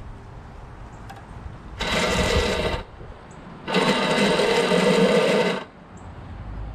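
Electric starter motor on a Briggs & Stratton Quantum mower engine whirring freely in two bursts as the key is turned, one about a second long, then one about two seconds long. The motor spins but does not crank the engine: the gearing it drives appears to be stripped.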